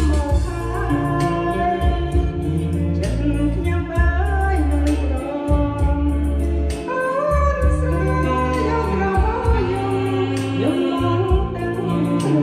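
Karaoke song: a voice singing a melody over a backing track with a stepping bass line and a steady beat.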